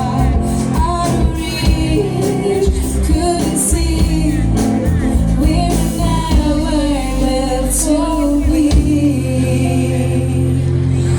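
Live band playing a pop song with a woman singing the melody over steady bass, and two bright crashes at about four-second intervals.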